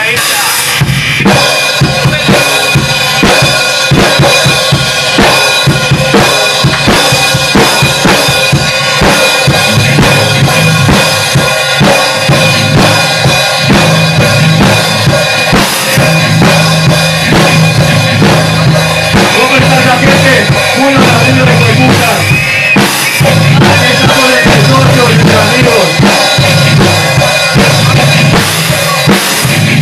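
Grindcore band recording: rapid, dense drumming with bass drum and snare over distorted guitar, loud throughout.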